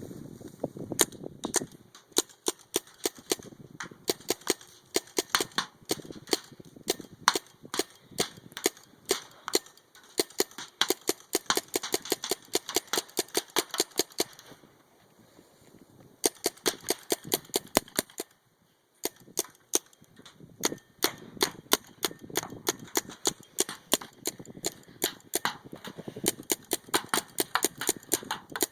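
Spyder MR100 Pro paintball marker firing rapid strings of semi-automatic shots, several a second, each a sharp pop. The firing breaks off briefly about halfway through and again a few seconds later.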